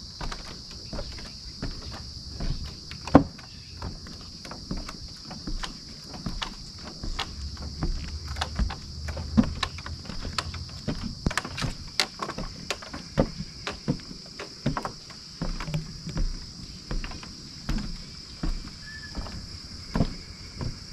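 Footsteps knocking on the wooden planks of a suspension bridge, about two a second, with the boards creaking and one sharp knock a few seconds in, over a steady high buzz of summer insects.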